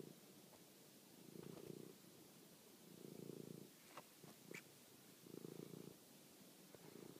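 Domestic cat purring faintly in low pulses, about one every two seconds in time with its breathing. A few light clicks and a short high chirp come around four seconds in.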